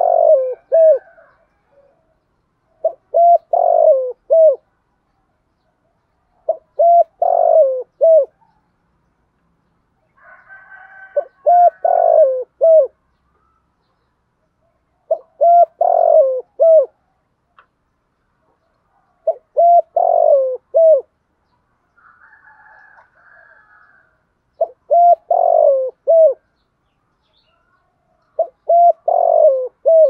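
Spotted dove cooing: a phrase of several short coos, repeated about every four seconds, eight times.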